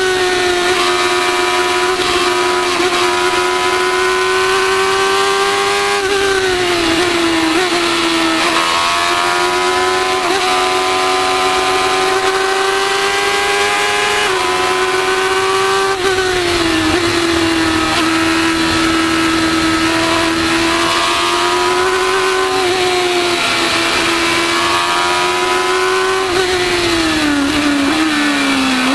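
Formula 1000 race car's 1000 cc motorcycle engine running hard at high revs, heard onboard. Its pitch holds high, drops a few times (about six, fourteen and twenty-six seconds in) and climbs back each time.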